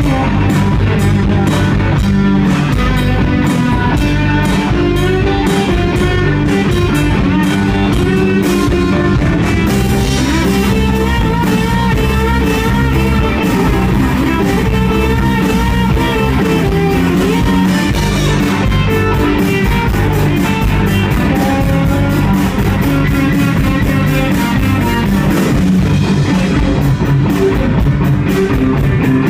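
Live rock band playing: electric guitars over bass and a drum kit, with cymbals ticking steadily through much of it.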